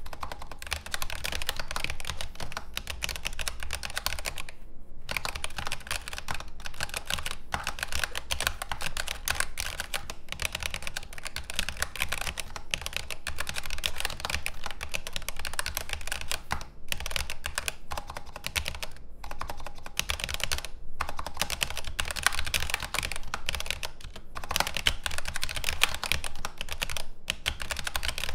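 Continuous fast typing on a Razer Huntsman V3 Pro keyboard with second-generation Razer analog optical switches and doubleshot PBT keycaps: a dense stream of key clacks, broken by a few brief pauses.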